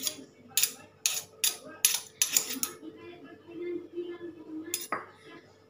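A metal spoon clinking and scraping inside a stone mortar, with a stone pestle alongside: a quick series of sharp clinks over the first two and a half seconds, then quieter scraping and one more knock near the end.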